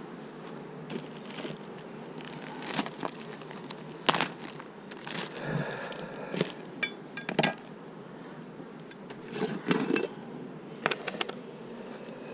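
Honeybees humming steadily around an open hive, with scattered sharp knocks and clinks of hive equipment being handled.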